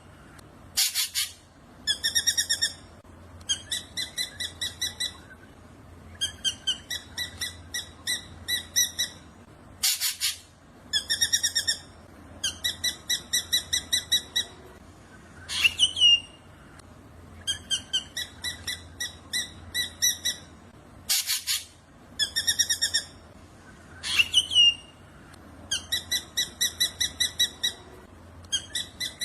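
Black drongo singing: sharp sweeping whistles alternating with rapid runs of buzzy, chattering notes, the phrases repeating over and over.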